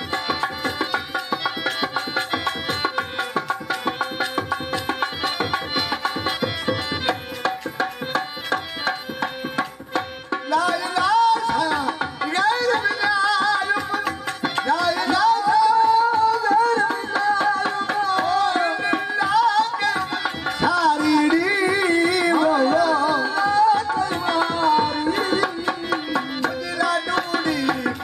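Sindhi Sufi music: gourd-bodied, long-necked tamburo lutes strummed in a steady droning rhythm with a percussive beat, and about ten seconds in a man's voice starts singing over them.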